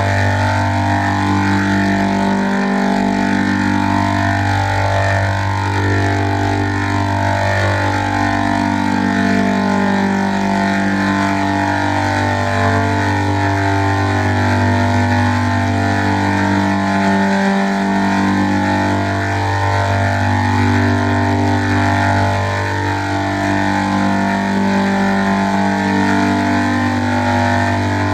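Heavily processed 'G-Major' style audio effect: a steady low hum under a dense layer of pitch-shifted, overlapping tones that change every second or two. The low hum briefly drops out twice, a little under 3 seconds in and again about two-thirds of the way through.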